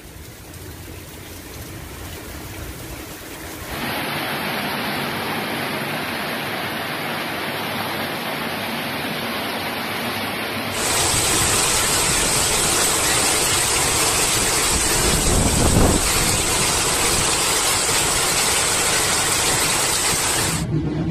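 Storm wind and heavy rain: a steady rushing noise of wind-driven rain, in spliced clips that get louder at cuts about 4 and 11 seconds in. A brief low thump of a gust is heard about 16 seconds in.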